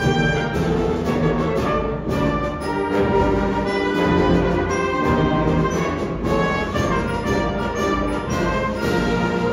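Massed school concert band and string orchestra playing together, trombones and tubas prominent over the strings, in held chords without a break.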